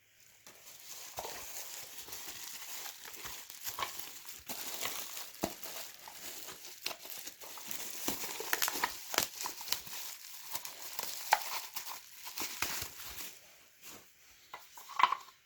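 Packaging being crinkled and pulled open by hand, a dense run of crackling and small clicks while an item is unwrapped. It eases off near the end, leaving a few louder clicks.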